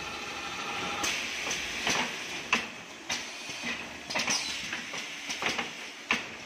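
Automatic plastic blister edge-folding machine running: a steady hum under irregular sharp clacks and clicks from its moving parts, the loudest about two and a half seconds in, with a brief falling squeal a little after four seconds.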